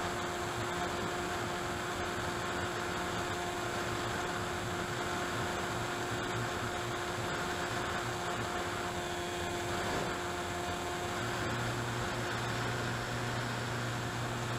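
Steady drone of an AXN Cloudsfly RC plane's electric motor and propeller in flight, picked up by the onboard camera's microphone together with rushing wind noise; a lower hum grows stronger about three quarters of the way through.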